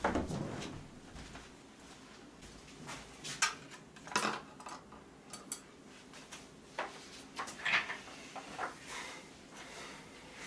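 Scattered light knocks and clicks of tableware handling: a paper-lidded instant-noodle cup being closed and plastic chopsticks set down across its lid. There is a soft thump at the start and a handful of sharp clicks spread through the rest.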